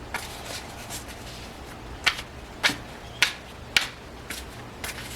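A series of sharp, evenly spaced clicks, about two a second, starting about two seconds in, over a faint low steady hum.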